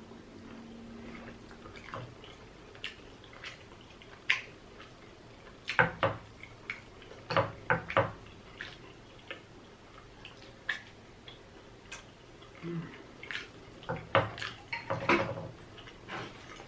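A person eating close to the microphone: irregular wet chewing and mouth smacking with sharp clicks, in clusters about six to eight seconds in and again near the end.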